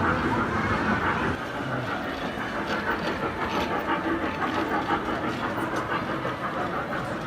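A small ride-on mall train running with passengers aboard: a steady rumbling clatter of its running gear, heavier for the first second or so.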